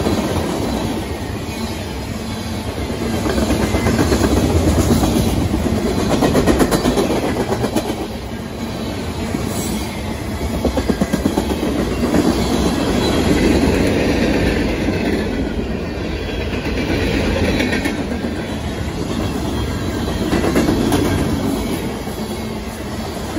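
Freight train of tank cars and hopper cars passing close by at speed: steel wheels rumbling and clacking over the rail joints in quick runs, the noise swelling and easing as the cars go by.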